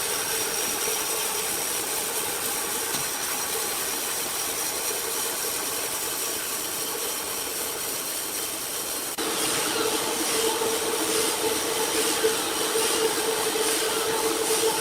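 Sawmill machinery running steadily, a continuous mechanical noise with a steady hum-like tone. About nine seconds in it jumps abruptly to a slightly louder, brighter sound.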